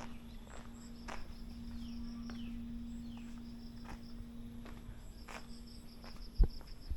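Insects, cricket-like, chirping in quick repeated pulse trains over a steady low hum, with a single short thump near the end.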